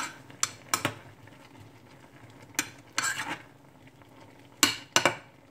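A metal spoon clinking and scraping against a small ceramic-lined saucepan while stirring carrots, in irregular sharp strikes, several close together about three seconds in and two near the end.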